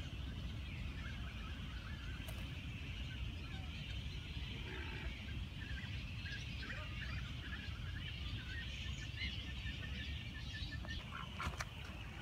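Waterbirds and other birds calling around a pond: a steady chatter of many short chirps and calls, over a low rumble.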